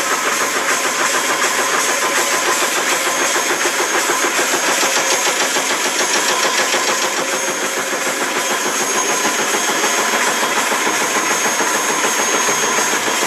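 A 45-ton high-speed automatic stamping press running, its rapid strokes coming in a steady chatter.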